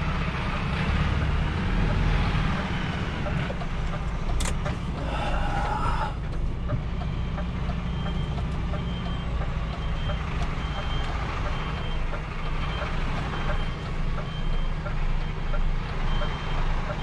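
A lorry's diesel engine running steadily at low speed while reversing. From about eight seconds in, its reversing alarm beeps at an even pace, a little more than once a second, with a short click and a brief rattle a few seconds before.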